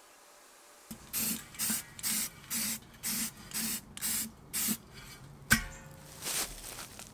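Aerosol spray-paint can spraying the steel mini keg in about eight short hissing bursts, roughly two a second. Then a single sharp thump, the loudest sound, comes about five and a half seconds in, followed by one softer hiss.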